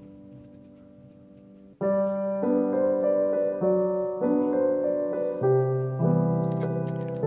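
Background piano music: a soft held chord, then about two seconds in a louder passage starts, with notes changing roughly every half second.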